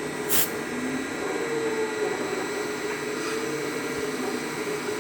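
CNC lathe running: a steady machine hum with a slightly wavering tone, and a brief hiss a little under half a second in.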